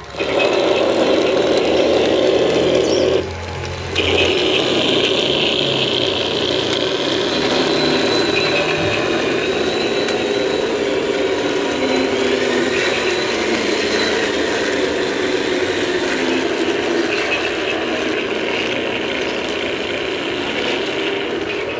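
1/16-scale M60 RC tank model running with its sound module on: a simulated tank engine plays through the model's small speaker, mixed with mechanical whirring and gear noise. The sound drops briefly about three seconds in.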